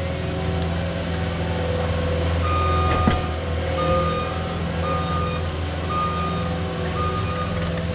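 Skid steer's diesel engine running steadily while its backup alarm beeps about once a second, starting a couple of seconds in, with one sharp clunk partway through.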